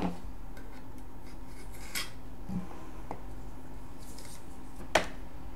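Plastic wrap being cut with a knife and peeled off a screwdriver-set case: a few short, sharp clicks and crackles, the loudest about five seconds in.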